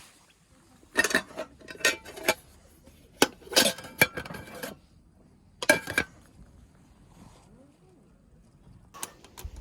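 Metal cooking utensils and camp cookware clinking and clattering in several short bursts, each knock ringing briefly.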